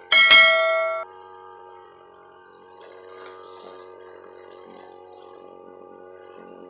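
A bright bell-like ding notification effect rings for about a second and then cuts off abruptly. A faint steady engine hum runs underneath.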